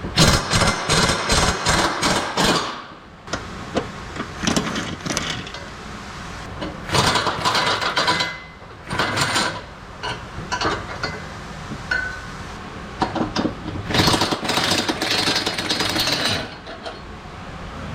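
Impact wrench running in several bursts of rapid hammering, the longest near the start and again about two-thirds of the way through.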